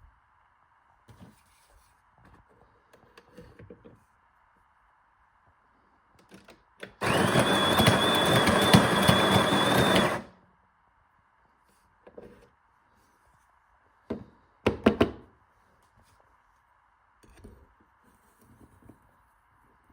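A coffee machine's motor runs loudly with a high, steady whine for about three seconds, then stops sharply. A few knocks follow a few seconds later.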